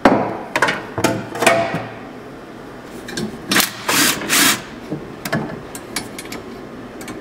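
Hand tools and loose metal parts clinking and knocking against a UTV's frame during disassembly, irregular sharp clicks and knocks throughout, with a few longer scraping sounds about four seconds in.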